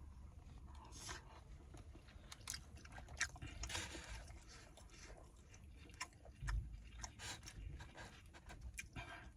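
A person chewing food close to the microphone: irregular wet smacks and mouth clicks. There is one low thump about six and a half seconds in.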